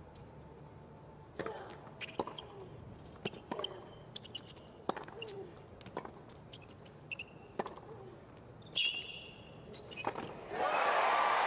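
Tennis rally on a hard court: a string of sharp racquet-on-ball pops, roughly one every second or so, with short shoe squeaks between them. Crowd applause breaks out near the end as the point finishes.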